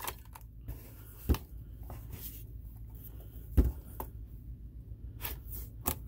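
Handling noise from a Realistic CTR-48 plastic cassette recorder turned over in the hands: a few scattered clicks and knocks, the loudest about three and a half seconds in, and another pair near the end as fingers press its piano-key transport buttons.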